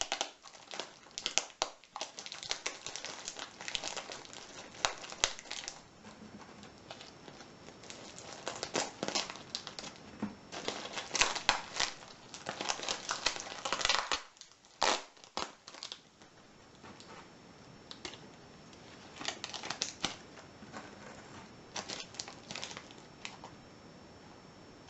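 Packaging being handled and unwrapped by hand: irregular crinkling and rustling, busiest in the first half, with quieter stretches after about 14 seconds.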